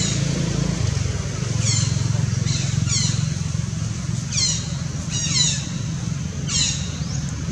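Short, high-pitched animal squeaks, about seven of them at irregular intervals, each falling steeply in pitch, over a steady low rumble.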